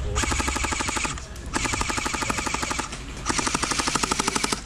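Airsoft gun firing on full auto in three bursts of rapid, evenly spaced clicking shots, each about a second long, with brief pauses between.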